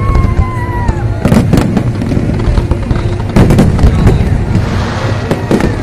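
Fireworks display: aerial shells bursting in a rapid, irregular series of loud bangs and booms, with music playing underneath.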